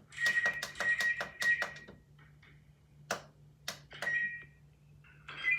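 Maytag MAH2400AWW washer's control-panel buttons being pressed to select spin. First comes a quick run of about eight beeping presses, then a few single clicks, with another beep near the end. A faint steady hum runs underneath.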